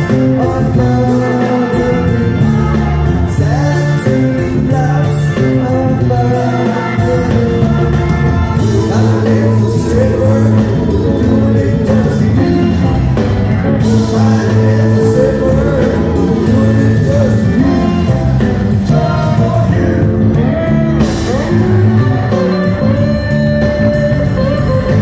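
Live band playing a song with singing: Hammond organ, drums, bass and electric guitar, with the sound of a large hall.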